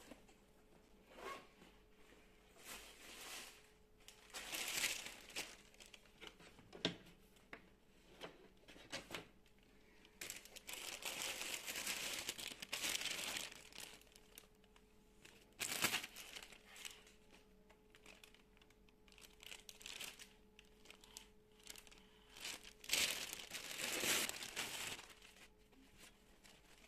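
Frosted plastic packaging bag crinkling and rustling as it is handled and unpacked, in irregular bursts with one longer stretch of rustling around the middle.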